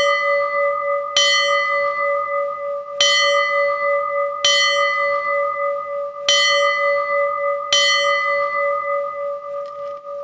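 Temple bell struck five times, about every one and a half seconds. Each strike rings on into the next as a sustained, slightly wavering hum.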